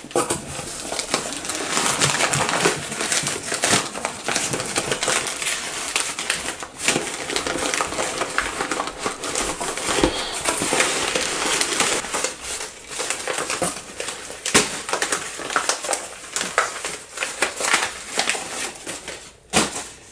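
Crumpled newspaper packing rustling and crinkling as hands pull it and a wrapped bag out of a cardboard shipping box, with scattered sharp crackles throughout.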